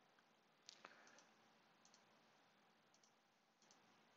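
Faint computer mouse clicks, about half a dozen short ones spaced irregularly, over near-silent room tone.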